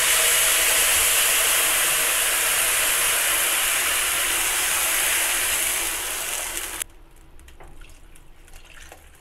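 Hot oil and roasted rice in a wok hissing and sizzling loudly as chicken broth is poured in, sending up steam. The hiss cuts off suddenly about seven seconds in, leaving a faint sound of plain water being poured into the pan.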